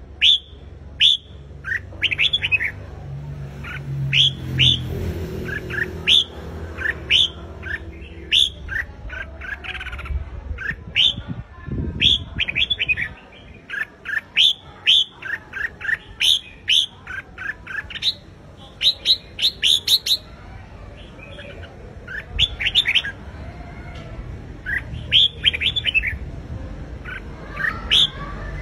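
Red-whiskered bulbul singing a fired-up competition song: quick phrases of short, sharp whistled notes, repeated again and again with brief gaps between phrases.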